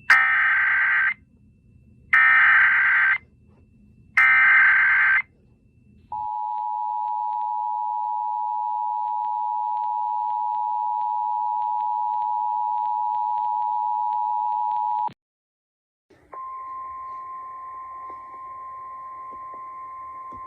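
Emergency Alert System header: three one-second bursts of warbling data tones a second apart, then the steady two-tone EAS attention signal for about nine seconds, cutting off sharply. About a second later a second, single-pitched steady alert tone starts, slightly higher in pitch.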